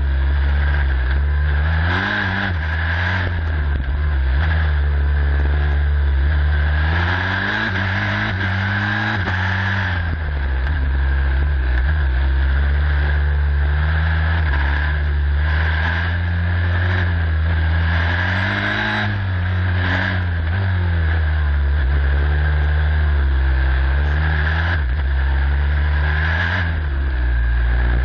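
Onboard sound of a turbocharged Formula Student race car's engine, revving up and down again and again as it accelerates and slows through tight corners in first and second gear.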